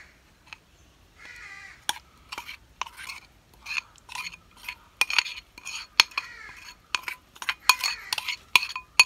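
A spoon scraping and clinking against a ceramic bowl as thick cake batter is scraped out into a steel tin: a quick run of scrapes and taps that grows busier and louder in the second half. A crow caws once in the background about a second and a half in.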